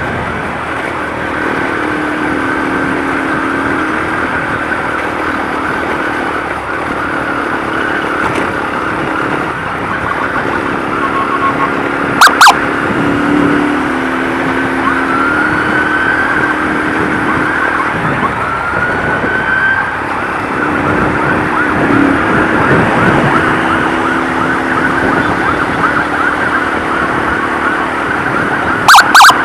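Emergency siren sounding continuously in a rapid warble, with engine and traffic noise underneath. There is a short, loud blip about twelve seconds in, and a couple of rising sweeps a few seconds later.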